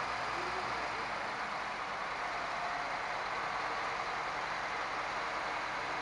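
Steady, even running noise of idling heavy vehicle engines.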